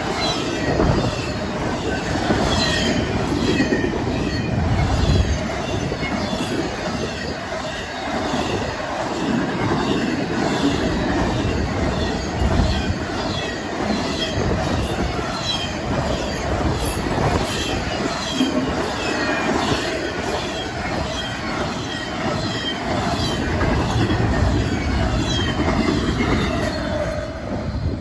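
A Norfolk Southern intermodal freight train's container cars roll past at speed: a steady rumble and rattle of wheels on the rails, with many short high-pitched wheel squeaks. The sound falls away near the end as the last car goes by.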